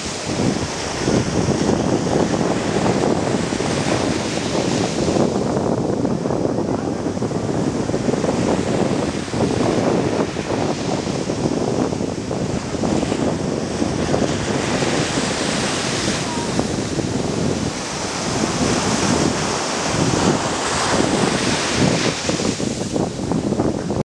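Small sea waves breaking and washing up a sandy beach: a continuous rush of surf that swells and eases every few seconds.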